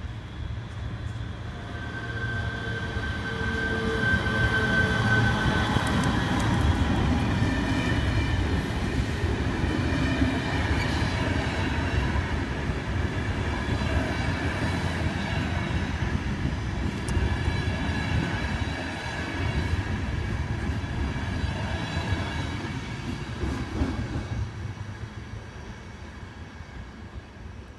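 Electric passenger train, led by TCDD E68000-class locomotive 68047, pulling out and passing close by. The rumble of wheels on rail swells over the first few seconds with high whining tones over it. It holds while the coaches go by and fades over the last few seconds.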